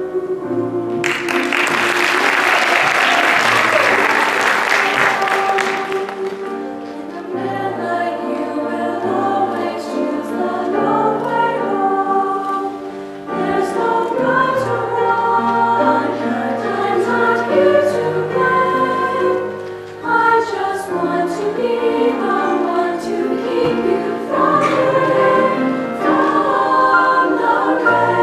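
Women's choir singing a slow song, with a burst of audience applause from about a second in that lasts some five seconds while the choir sings on.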